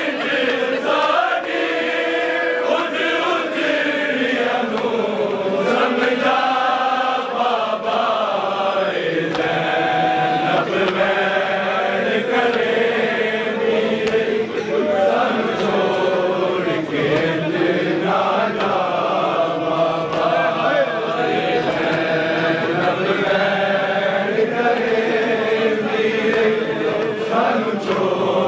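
A group of men chanting a noha, a Shia mourning lament, together in unison, with the slaps of matam, hands beating on chests, cutting through the chant.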